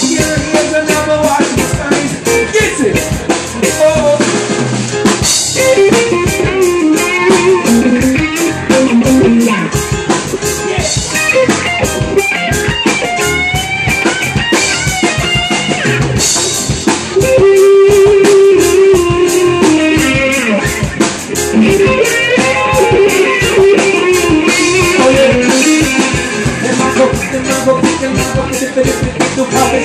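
Live reggae band playing with a steady drum beat: drum kit, electric bass and electric guitar.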